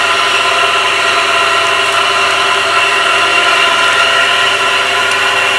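Electric water pump motor running with a loud, steady whining hum made up of several tones. It is bearing noise: the owner says water leaking past a failed seal has damaged the bearings.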